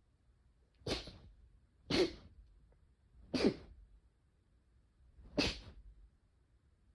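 Four short sneezes in a row, about one to two seconds apart.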